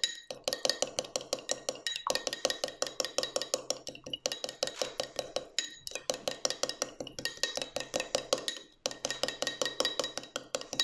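A metal utensil briskly beating a Dijon mustard, agave syrup and oil dressing in a small glass: rapid clinking strokes about six a second against the glass, in runs broken by short pauses every couple of seconds.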